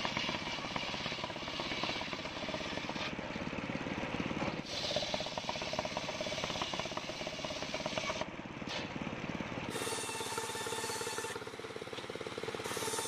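Homemade engine-driven circular sawbench ripping a waru (sea hibiscus) log lengthwise, the blade cutting under load over the engine's fast, even running beat. About ten seconds in, the cut finishes and the blade runs free with a steady whine.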